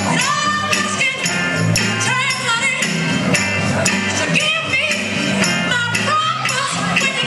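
Upbeat oldies dance music with singing voices over a bass line and a steady beat, with evenly spaced strikes of a bright percussion instrument.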